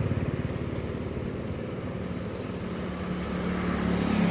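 A motor running with a rapid, even pulsing; a steady low hum firms up and grows louder near the end.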